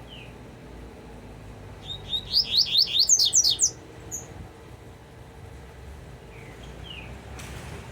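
Double-collared seedeater (coleiro) singing one fast phrase of about a dozen quick sweeping notes lasting under two seconds, from its 'tuitui compressor' song type, with single short chirps before and after. A brief rush of noise comes near the end.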